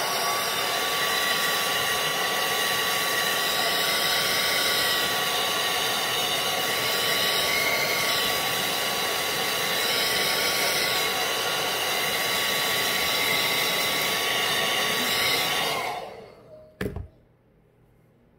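Handheld hair dryer running steadily with a high-pitched motor whine, drying lace glue at the hairline. About 16 seconds in it is switched off and the whine falls away, followed shortly by a single click.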